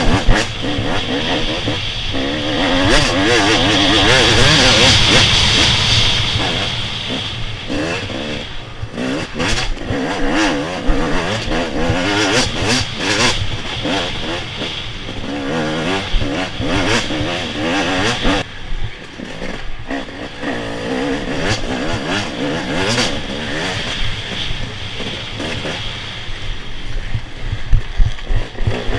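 A 250cc off-road motorcycle engine under hard riding, its pitch rising and falling constantly as the throttle is worked. Frequent sharp knocks and clatter come through from the rough ground, and a loud rushing hiss sits over it a few seconds in.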